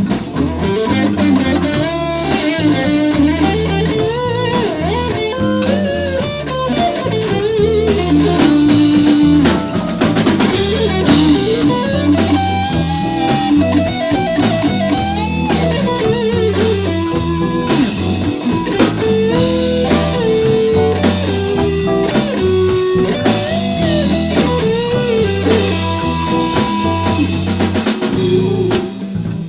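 Live blues band playing an instrumental passage: a lead electric guitar line with bent notes over a repeating bass figure and a steady drum-kit beat.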